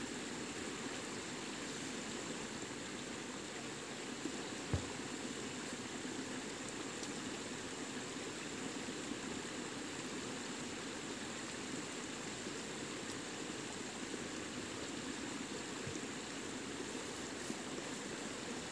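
Steady rush of a forest stream flowing, with a single short knock about five seconds in.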